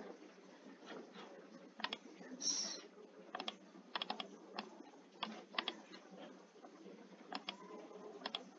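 Computer keyboard typing: irregular single keystrokes and small runs of key clicks. There is a short hiss about two and a half seconds in.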